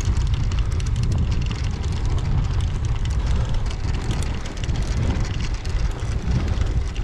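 Wind buffeting the microphone of a camera on a moving bicycle: a loud, uneven low rumble with a hiss of rushing air.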